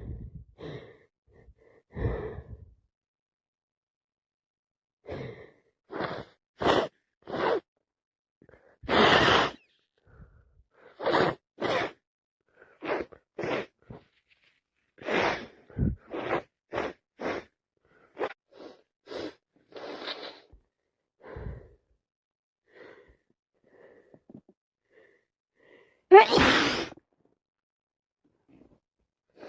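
A person sneezing again and again in a long fit, with short breaths and sniffs between the sneezes; the loudest sneeze comes near the end.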